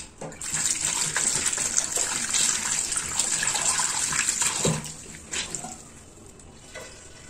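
Water tap running into a ceramic washbasin, splashing over cloth face masks rinsed by hand under the stream. The tap is shut off a little under five seconds in, leaving only faint handling sounds.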